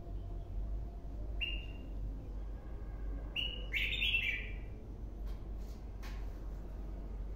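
Caged red-whiskered bulbul singing: a short phrase about one and a half seconds in, then a louder, fuller run of whistled notes between about three and a half and four and a half seconds.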